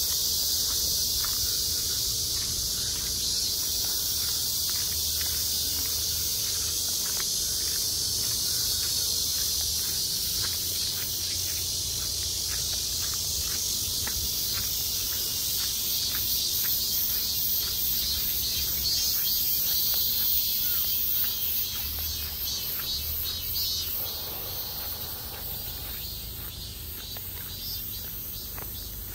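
Loud, steady chorus of cicadas, a dense high-pitched buzz that eases off somewhat in the last few seconds.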